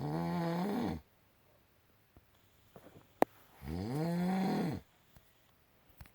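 A man snoring loudly: two long, pitched snores about three and a half seconds apart, each rising and then falling in pitch. A single sharp click comes between them.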